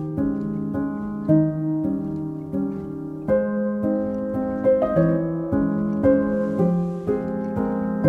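Slow, gentle background piano music, with new notes struck every half second to a second over sustained chords.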